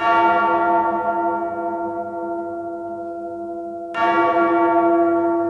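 A deep bell struck twice, about four seconds apart, each stroke ringing on with many overtones that slowly fade.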